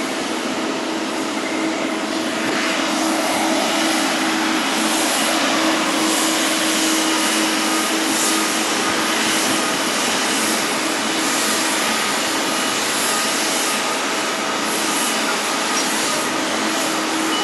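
Jet airliner engines running, a steady loud rushing noise that swells about two seconds in and holds, with a steady low hum beneath it.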